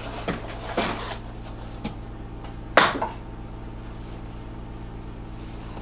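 Cardboard shipping box being opened by hand: flaps scraping and rustling, with one sharp knock about three seconds in, over a steady low hum.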